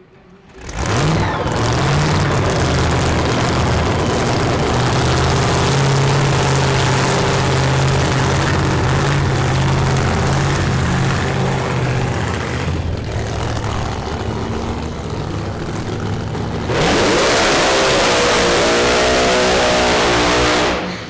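Supercharged methanol V8 of a drag-racing doorslammer firing up about a second in and running with a loud, lumpy idle. Near the end it revs hard and high in a burnout, then cuts back.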